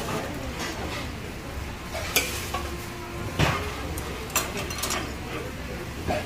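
Gomtang broth boiling hard in black earthenware pots (ttukbaegi) on gas burners, making a steady bubbling sizzle. Several sharp clinks of dishes sound over it.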